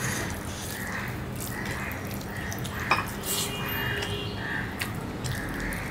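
Wet eating sounds: rice and curry mixed by hand on a plate and chewed, with a soft sound repeating about twice a second. One sharp click about three seconds in.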